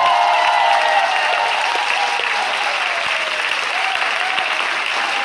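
Audience applauding steadily as the music ends, with a few shouted cheers in the first second or so.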